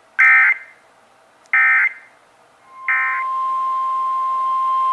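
Emergency Alert System signalling: three short, identical screeching SAME data bursts, the end-of-message code closing the previous alert. Nearly three seconds in, a steady single-pitch alert tone near 1 kHz begins and holds, the warning alarm tone that introduces the next alert, a tornado warning.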